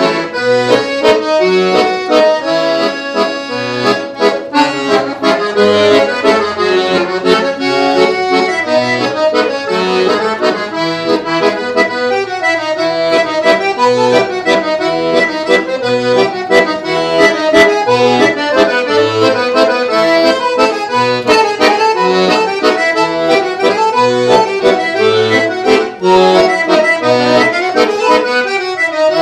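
Todeschini piano accordion played solo: a melody on the keyboard over a regular pulse of low bass notes.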